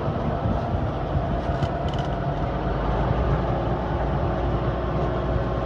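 Farm tractor engine running steadily under way while towing a grain trailer, with a few light clicks or rattles about two seconds in.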